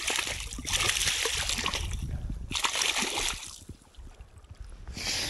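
Water splashing and sloshing at the surface of shallow water as a hand works in it: a long burst of about two seconds, a shorter one, then quieter, and a brief splash near the end.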